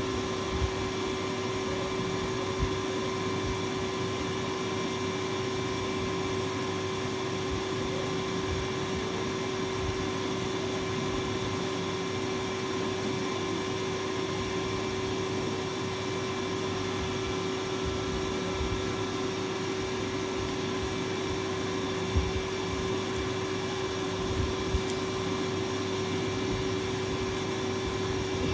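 Steady machine hum with a constant mid-pitched tone and a hiss over it, unchanging throughout, with a few soft clicks about half a second in, near three seconds, and twice near the end.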